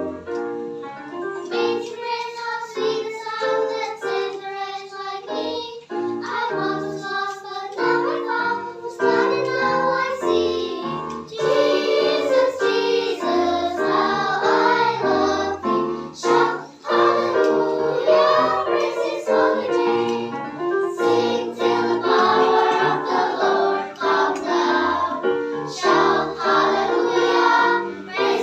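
Children's choir singing a hymn with keyboard accompaniment.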